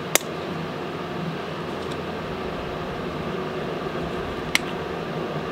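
A pellet smoker's fan running with a steady hum. Two sharp clicks, one right at the start and one about four and a half seconds in, from the flip-top lid of a plastic seasoning shaker being opened.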